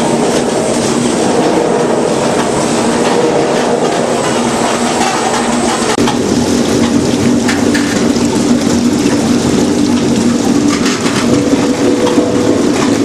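Industrial vertical-type peeling machine running: a steady mechanical hum under a continuous dense rattle, with no pause.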